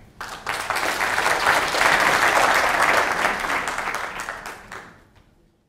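Audience applauding: it starts just after the opening, swells, then dies away about five seconds in.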